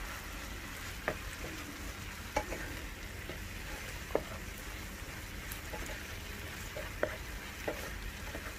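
Seitan pieces being stirred and turned with a wooden spatula in a pan of thickened chili sauce: a steady frying sizzle, with a few light knocks of the spatula against the pan.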